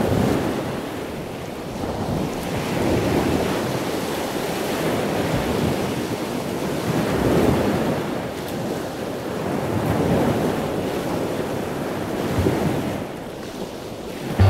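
Sea water washing and sloshing in slow swells that rise and fall every two to three seconds.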